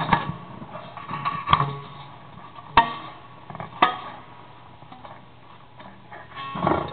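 Homemade noise box, a metal frame with threaded rods and a long steel wire loop, plucked and struck by hand: four sharp metallic plucks about a second apart, each ringing briefly at a steady pitch, then a longer, rougher sound near the end.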